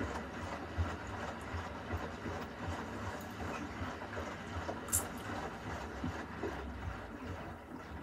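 Beko front-loading washing machine mid-wash: the drum turning and tumbling the load with water sloshing inside, over a low pulsing rumble. A sharp click stands out about five seconds in.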